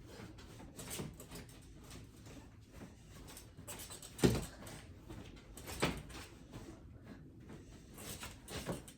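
A few scattered knocks with faint handling noise between them; the loudest comes about four seconds in, with smaller ones near six seconds and near the end.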